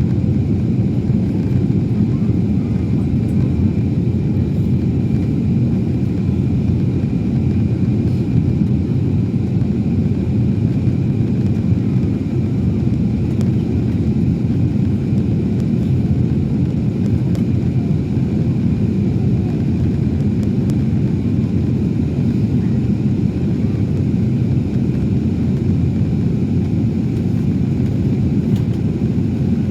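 Airbus A321neo cabin noise in flight: a steady, loud, low rumble of engine and airflow noise that does not change.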